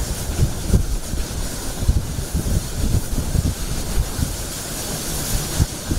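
Hurricane wind gusting hard against the microphone in uneven low rumbles, over a steady hiss of driving rain.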